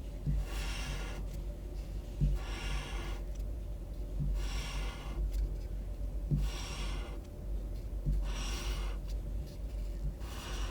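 Pink felt-tip highlighter drawn across paper in repeated strokes, a squeaky rasp of under a second roughly every two seconds, each starting with a light tap as the tip touches down.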